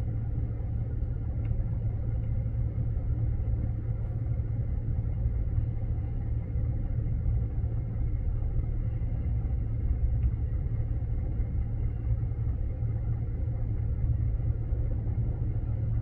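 A steady low mechanical rumble with a constant hum underneath.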